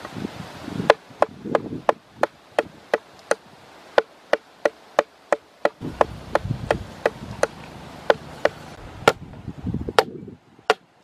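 A stone knocking repeatedly on a green bamboo tube laid in the ground, about three sharp knocks a second, each with a brief ringing note, stopping near the end.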